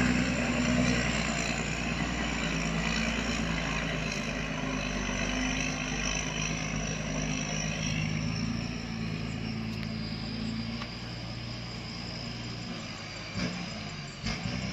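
Diesel engine of a heavy work vehicle running steadily, its hum slowly fading as the machine moves off. A thin high whine glides slowly down in pitch in the second half, and a couple of short knocks come near the end.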